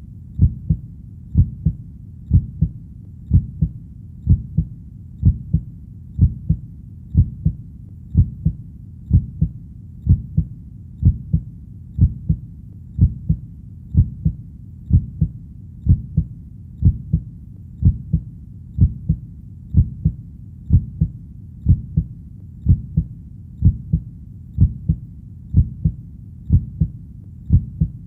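Steady heartbeat: a low double thud (lub-dub) about once a second, repeating evenly, over a faint steady low background.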